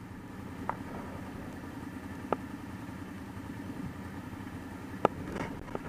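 ATV engine idling steadily, with a few sharp clicks or knocks over it, the loudest near the end.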